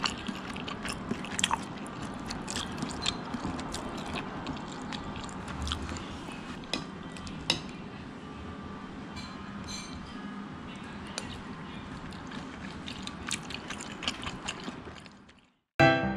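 Metal spoon clinking and scraping against a ceramic soup bowl of rice-cake soup, as scattered sharp clicks over a steady low background hiss. It cuts off abruptly near the end, and piano music starts.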